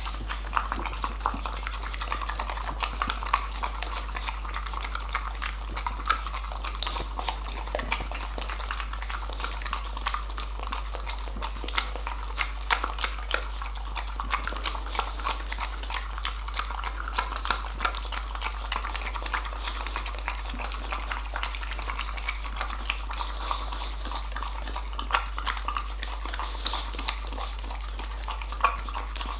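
Boxer dog licking and slurping yoghurt remains out of a plastic yoghurt cup: a continuous run of quick wet licks and smacks of the tongue against the plastic.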